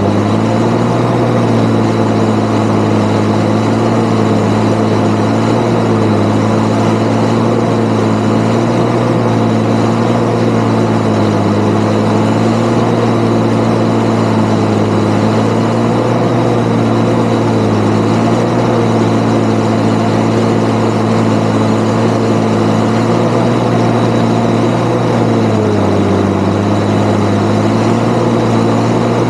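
Valtra 8400 tractor's six-cylinder diesel running steadily under load, heard close to the exhaust stack, with a thin high whine over it. The engine pitch wavers a little and sags briefly near the end before recovering, as it pulls through the swaths.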